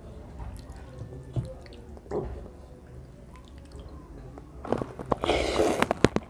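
A person slurping instant ramen noodles off a fork, a loud wet slurp with crackling clicks starting about three-quarters of the way in. Before it, faint clicks of a metal fork stirring noodles in a ceramic bowl.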